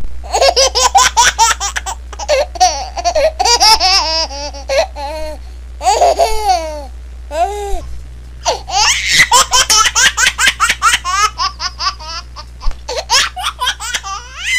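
A baby laughing hard in quick, high-pitched chuckles, breaking off briefly about halfway through before starting again.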